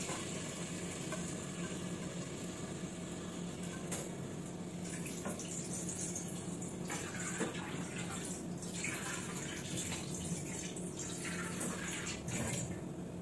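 Pot of rice and water heating on the stove, giving a steady low hiss with faint bubbling and a few small ticks.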